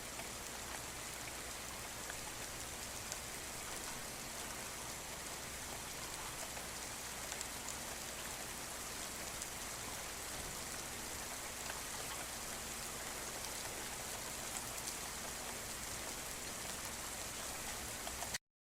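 Steady rainfall with scattered individual drop ticks, cutting off suddenly near the end.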